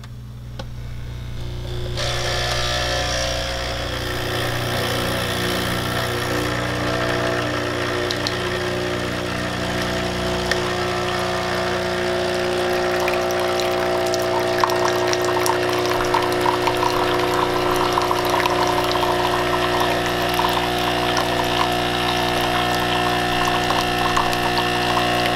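Nespresso Essenza Mini capsule machine's pump running a lungo rinse cycle with plain water, priming and flushing the system on first use. The hum is very loud and steady, with water streaming into a mug; it builds over the first two seconds and cuts off abruptly at the end.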